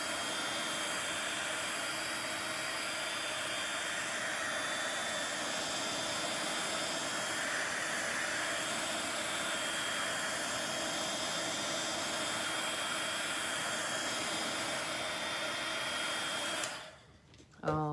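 Craft heat tool (embossing heat gun) running steadily, its fan blowing hot air with a faint motor whine to dry and push alcohol ink across a card. It cuts off suddenly near the end.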